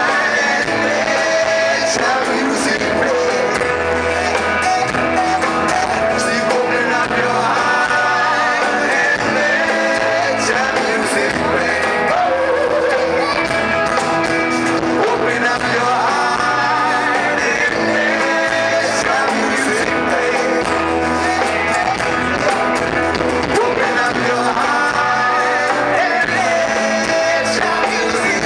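Live band playing an upbeat song: strummed acoustic guitar, bass guitar and conga drums, with a man singing into the microphone.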